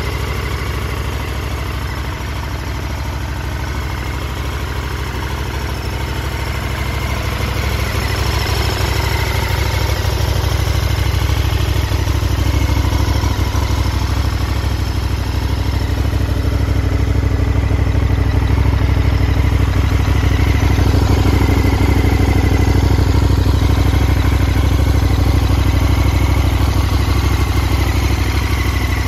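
KTM 1290 Super Adventure S's 1301 cc V-twin idling steadily, growing louder over the middle of the stretch.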